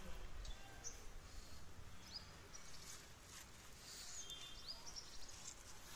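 Faint outdoor ambience: birds chirping, several short high calls scattered through, over a low steady background rumble.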